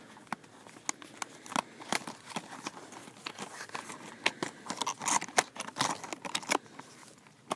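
Cardboard and plastic packaging of a 1:64 diecast car being handled and pried at in a struggle to open it: an irregular run of crinkles, clicks and scrapes.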